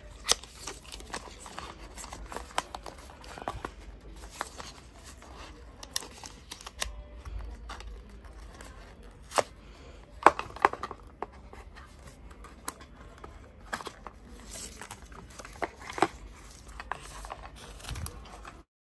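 Paper and card packaging rustling and crinkling, with scattered light clicks, as an Apple Watch magnetic charging cable is worked out of its folded paper holder.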